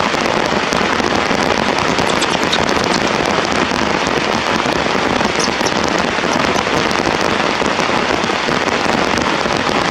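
Heavy rain falling steadily, a dense, unbroken patter of drops.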